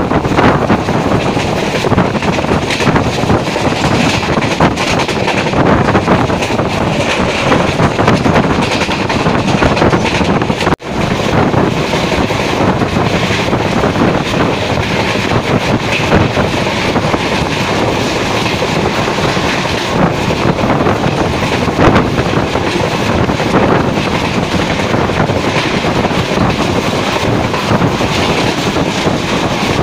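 Express passenger train running at speed, heard from an open coach doorway: a loud, steady rush of wheels on rail and wind, with clickety-clack from the track. The sound drops out sharply for a moment about eleven seconds in.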